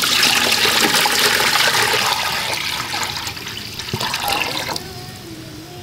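Water poured from a plastic jug into a large aluminium cooking pot, splashing as it fills. The gush is loudest at first, eases off, and stops abruptly about five seconds in.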